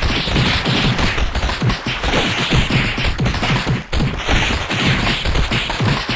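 Rapid, overlapping sneezes in a dense, unbroken barrage of many sudden bursts a second, with a brief dip just before the four-second mark.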